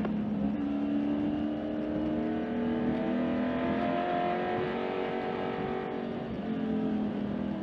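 Race car's engine heard from inside the cockpit, running at a steady part throttle. Its pitch rises gently and then eases back down near the end.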